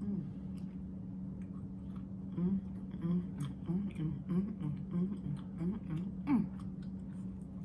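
A woman eating: chewing with small clicks and smacks. From about two seconds in to about six seconds she hums a run of short, low 'mm' notes with her mouth closed. A steady low hum runs underneath.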